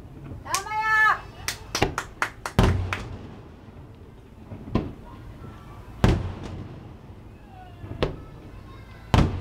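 Aerial fireworks shells bursting in a string of sharp bangs. A quick cluster of cracks comes about two seconds in, then single booms every second or two. A voice calls out briefly, rising and falling in pitch, near the start.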